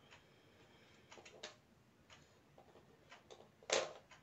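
Light, irregular clicks and taps as fingers pull the hands off the centre of a plastic wall clock's dial, the loudest click near the end.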